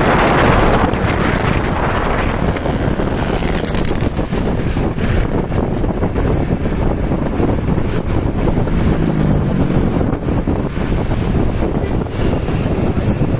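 Tour bus running with a loud full (open) aftermarket exhaust as it drives, under heavy wind noise on the microphone.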